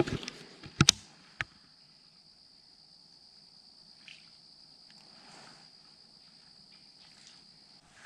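A few sharp knocks and clicks from a baitcasting rod and reel being handled in a boat, followed by a faint, steady high trill of insects that stops near the end.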